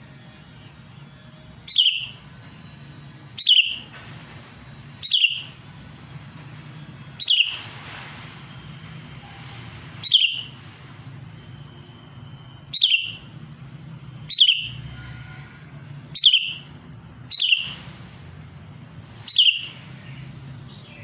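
Sooty-headed bulbul (cucak kutilang) giving about ten loud, sharp call notes, one every couple of seconds, each dropping in pitch. These are the bird's excited calls challenging a rival.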